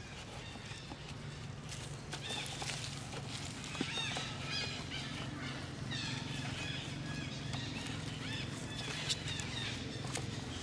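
A young macaque giving a rapid series of short, high-pitched squealing calls, with a few crackles of dry leaves underfoot.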